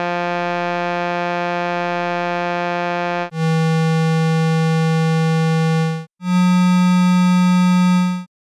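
Computer-synthesised buzzy tone with many harmonics, held at one low pitch in three sections, with a short break before the last. It stops about eight seconds in. The waveform is reshaped between sections so that it looks different on an oscilloscope but is meant to sound the same to the ear.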